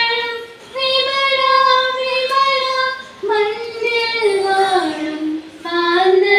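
Women singing a slow melody into a microphone, holding long notes in phrases with short breaks between them.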